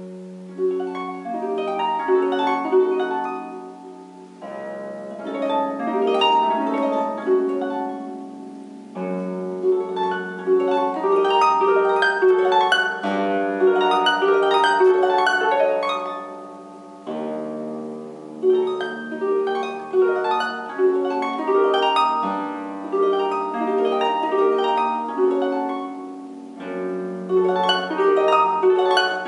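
Solo concert harp playing, starting out of near silence: runs of plucked notes over ringing low bass notes, in phrases of a few seconds with short breaks between them.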